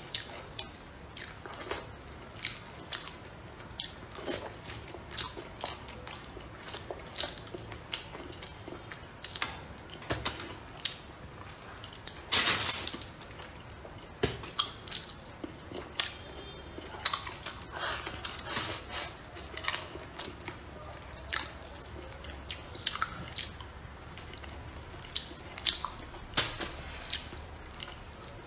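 Close-miked chewing and wet mouth sounds of a person eating spicy braised crucian carp with eggplant. Many short smacks and clicks follow one another irregularly, with a louder burst about twelve seconds in.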